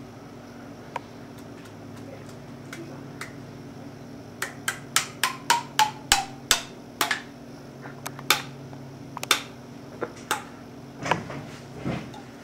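Sharp knocks on an upturned tin can of condensed tomato soup held over a stainless steel pot, struck to loosen the soup: about ten in quick succession a few seconds in, then a few single knocks about a second apart.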